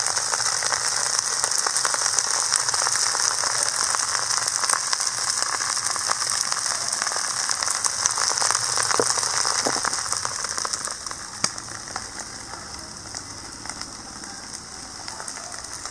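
Fried rice sizzling in a large iron wok over the flame, with scattered clicks and scrapes of a ladle in the rice. The sizzle drops to a quieter hiss about ten seconds in.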